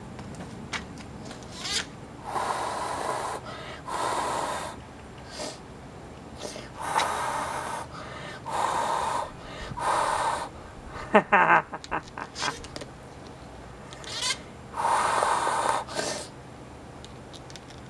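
Person blowing hard through a handheld bubble wand: about six long puffs of breath, each lasting about a second. Midway there is one short sound that slides down in pitch.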